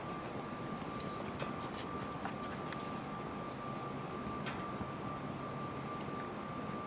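Wood fire burning in a small fire stand, crackling with scattered pops and one sharp pop about halfway through, over a steady thin high whine.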